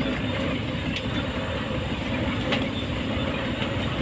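Rice combine harvester running steadily, its engine and threshing machinery making a continuous heavy mechanical din with a few faint ticks.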